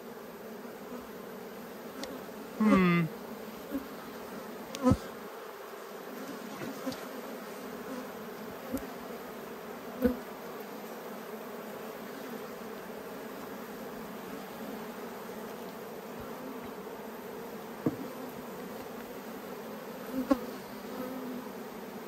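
Honeybees humming steadily from an open Langstroth hive, the drone of many wingbeats. A brief, louder buzz comes about three seconds in, and a few short light knocks follow as wooden frames are handled.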